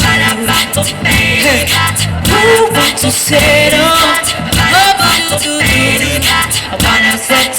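Live band playing pop-rock music: a singer's voice over guitar and a steady beat.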